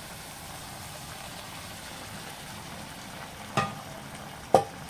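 Meat frying in pork lard in a wide aluminium pot under a heap of freshly added cooked beans, a steady sizzle. Two sharp knocks with a short ring cut through it, about three and a half and four and a half seconds in.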